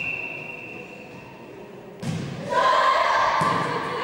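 A referee's whistle holds one long steady note that fades away. About two seconds in, a volleyball serve is struck with a thud, and players' voices call out as the rally starts.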